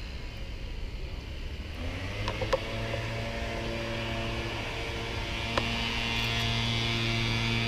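A steady low hum with fainter higher tones that come and go, and a few light clicks about two and a half and five and a half seconds in.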